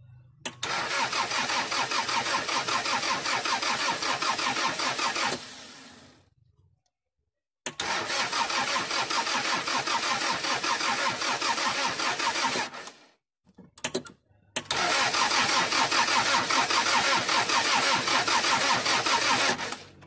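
Toyota 2C four-cylinder diesel cranked on its starter motor in three bursts of about five seconds each, with short pauses between. The injector high-pressure lines are undone to bleed fuel and dirt out of them, so the engine turns over without starting.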